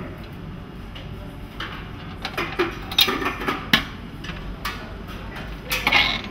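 Domed lids of buffet chafing dishes being opened and closed: several sharp clinks and clatters of metal and glass, with a cluster of them near the end, over a low steady hum.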